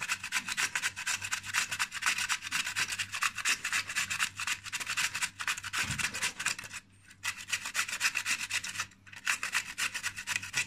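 Fresh cucumber being grated on a metal box grater, a fast run of rasping strokes, several a second, that pauses briefly twice in the second half.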